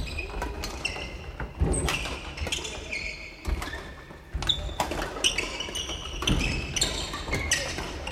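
Badminton play on several courts at once: frequent sharp racket hits on shuttlecocks, short high squeaks of shoes on the wooden floor and thudding footfalls, echoing in a large gym hall.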